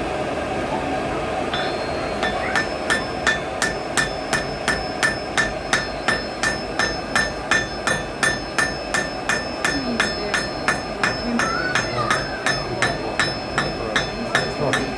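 Blacksmith's hammer striking hot iron on an anvil, a steady rhythm of about two ringing blows a second that starts about two seconds in, over a steady rushing noise.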